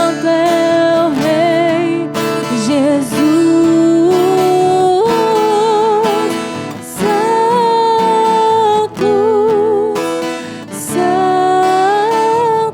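Worship song: acoustic guitar strumming under a voice singing long held notes with vibrato, in phrases separated by short breaths.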